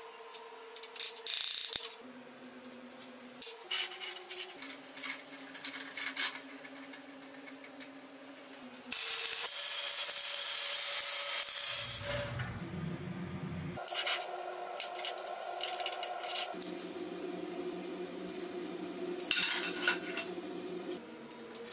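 Steel clamp parts (threaded rod, nuts and flat bars) clinking and clattering as they are handled and fitted together on a steel workbench, with a welding arc running steadily for about three seconds near the middle.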